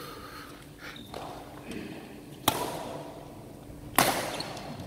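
Badminton racket strikes on a shuttlecock: two sharp hits about a second and a half apart, each echoing briefly in the large hall.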